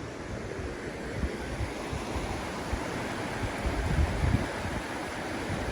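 Steady rushing of a river's flowing water, with wind buffeting the microphone in low rumbles around the middle.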